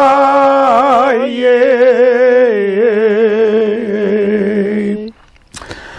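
An elderly man's unaccompanied voice singing a long, drawn-out line of a Kashmiri marsiya (religious lament) in chant style. The note wavers and is ornamented, steps down to a lower pitch about halfway through, and ends about five seconds in.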